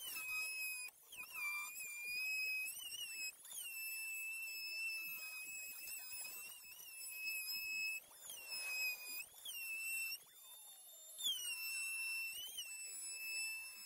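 Corded electric drill running in a series of short trigger pulls at fixings in a plastic wall panel. Each run starts with a rising whine that settles to a steady high pitch for a second or two, and one run winds down in pitch about ten seconds in.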